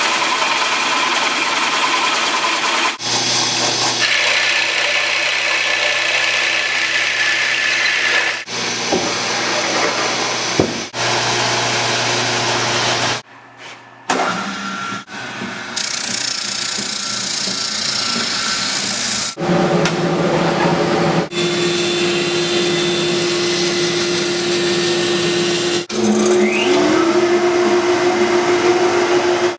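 Workshop power tools running in a string of short clips that cut abruptly from one tool to the next. Near the end a motor spins up, its pitch rising.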